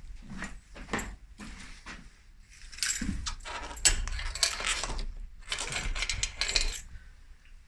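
Small metal parts or tools clinking and rattling as they are handled, with two longer spells of clatter about three and five and a half seconds in.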